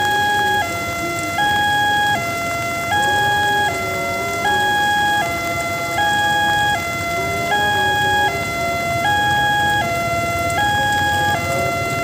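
Railway level-crossing warning siren: an electronic two-tone alarm switching steadily between a higher and a lower note, each held just under a second. A fainter, lower wavering tone comes and goes beneath it.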